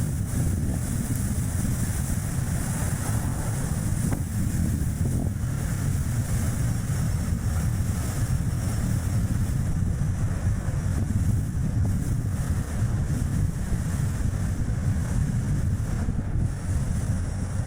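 Strong wind buffeting the microphone over steady road and tyre noise from a Chevrolet Spark light car driving, a constant low rumble with a hiss on top.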